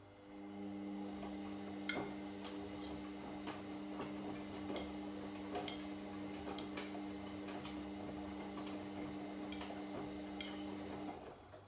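Washing machine motor turning the drum through a wash cycle: a steady hum starts just after the beginning and cuts off about eleven seconds in, with irregular clicks and light knocks from the tumbling laundry against the drum.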